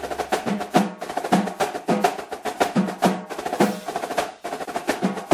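Percussion music: a fast run of sharp, wood-block-like clicks and drum hits, several strikes a second, many with a low drum thud under them.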